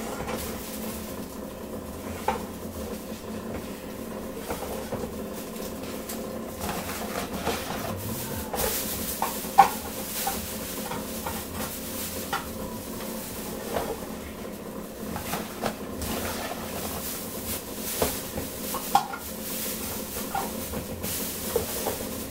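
Kitchen handling sounds: scattered clinks and knocks of dishes and utensils over a steady hum, with a sharp clink about ten seconds in and another near the end.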